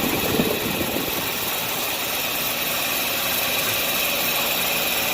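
Air-conditioner outdoor condenser unit running and vibrating hard, a steady mechanical noise with a rattle most pronounced in the first half second. The shaking comes from a misaligned condenser fan blade and mechanical looseness.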